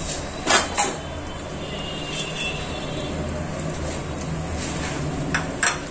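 Steady low rumble of a pot of chicken cooking on a gas burner, with a few short clicks and taps as salt is added from a container, twice near the start and again near the end.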